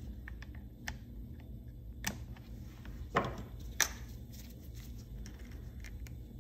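A few small, sharp metal clicks and one duller knock about three seconds in, from circlip pliers fitting a wrist-pin circlip into a chainsaw piston.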